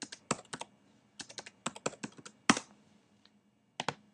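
Typing on a computer keyboard: irregular short runs of key clicks as an email address is entered, the loudest stroke about two and a half seconds in. A final pair of clicks comes near the end.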